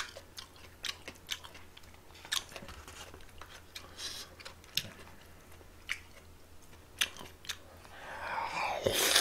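Close-miked eating sounds: scattered small clicks of chopsticks on a plastic takeout container and mouth smacks. Near the end comes a louder, longer bout of noisy eating as a mouthful of food goes in.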